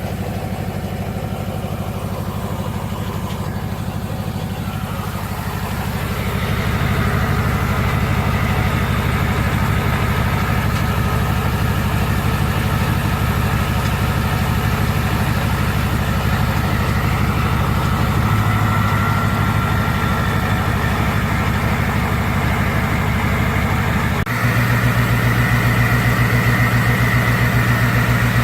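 2006 Ford 6.0 Power Stroke V8 turbodiesel running steadily after a cold start, through a straight-piped exhaust with only a muffler. It grows louder about six seconds in as a faint whine joins, then steps up again abruptly a few seconds before the end.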